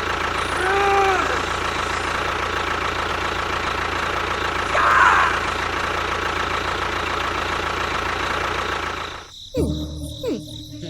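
Steady mechanical hum of a small motor running, with two short sliding cries over it, cutting off sharply about nine seconds in and followed by quieter sliding tones.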